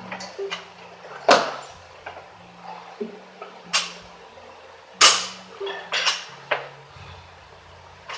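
Sharp metallic clanks and thuds of a barbell loaded with bumper plates being cleaned and jerked, the plates rattling on the bar and feet stamping on the landing. There are several separate hits, the loudest about a second in and again about five seconds in.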